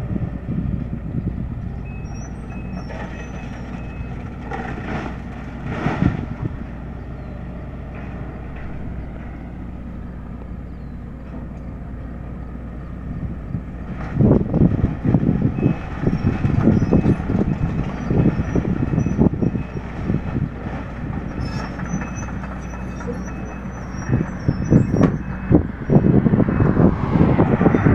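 A large engine running steadily, growing louder and rougher about halfway through and again near the end.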